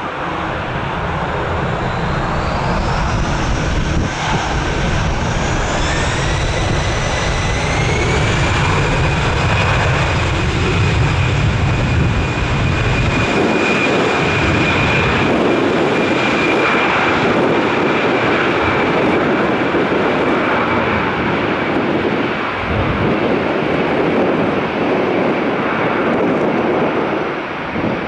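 Twin turbofan engines of an Airbus A320-family airliner spooling up to take-off thrust: a whine rises in pitch a few seconds in, then holds steady over a loud, even jet roar through the take-off roll. Wind buffets the microphone during the first half.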